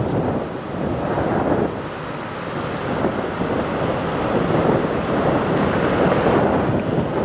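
Semi truck's diesel engine running close by, a steady noisy rumble with wind noise on the microphone.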